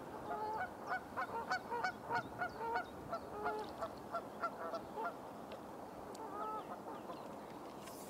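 Geese honking: a quick run of short, repeated honks for the first five seconds or so, then a few more about six and a half seconds in.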